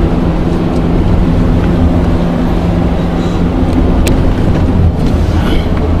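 Car engine running steadily under way with tyre and road rumble on an unpaved road, heard from inside the cabin. A single sharp click about four seconds in.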